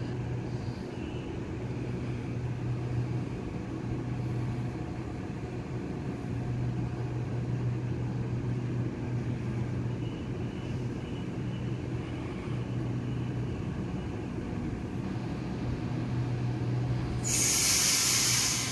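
Double-deck electric suburban train standing at the platform, its equipment giving off a low hum that comes and goes. Near the end a loud burst of air hiss, typical of the air brakes releasing for departure.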